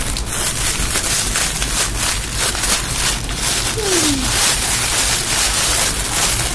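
Crackling and rustling of clear plastic gift wrap being handled and cut with scissors, over a steady hiss.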